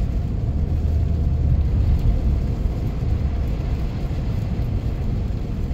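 Steady low rumble of a car driving at about 40 mph on a snow-covered highway, heard from inside the cabin: engine and tyres rolling over packed snow.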